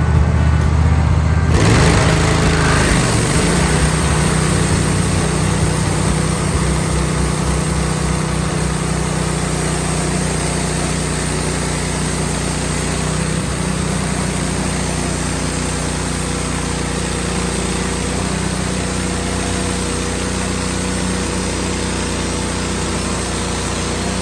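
Wood-Mizer LT15 band sawmill running steadily, its engine and band blade working through a pine log. The sound shifts abruptly to a fuller, hissier tone about a second and a half in.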